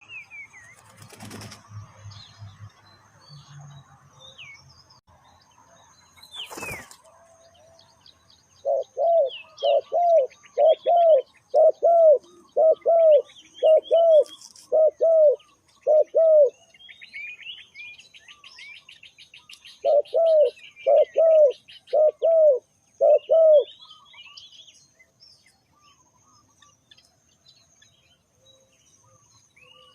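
Spotted dove cooing: a run of about ten low, evenly spaced coos, then four or five more after a pause of a few seconds. Small birds chirp faintly throughout, and there is a brief knock before the cooing starts.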